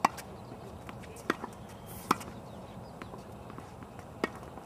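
Tennis ball struck by racket strings and bouncing on a hard court during a ground-stroke rally: about four sharp pops spread over the few seconds, with the first at the very start.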